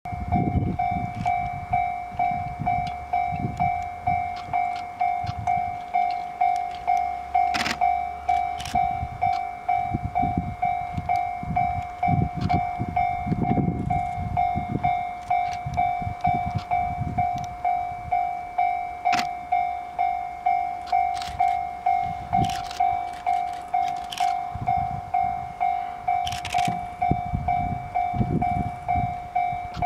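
Japanese railway level-crossing warning bell ringing: a steady electronic clang repeating evenly, roughly three strikes every two seconds, signalling an approaching train. Irregular low rumbles come and go beneath it.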